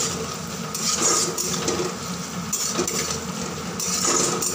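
Chopped onion and garlic sizzling in hot oil in a metal kadai while a metal spatula stirs them, scraping against the pan in three strokes.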